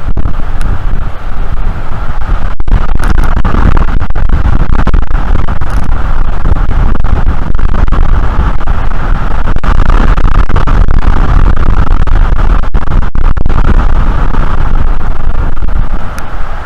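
Strong wind buffeting an outdoor nest-camera microphone: a loud, constant rumbling rush that cuts out briefly a few times.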